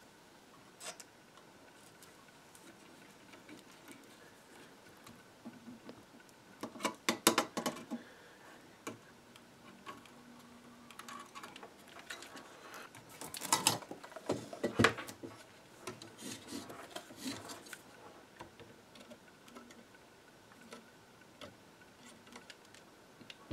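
Small clicks and rattles of hand tools and electronic parts as a resistor's leads are bent and fitted to a terminal strip in a power-supply chassis, in two short busy clusters about seven and thirteen seconds in, with scattered lighter ticks between.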